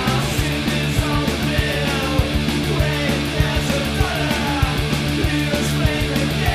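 Fast punk rock song: a full band with electric guitars and drums, the drums hitting in a quick, steady beat.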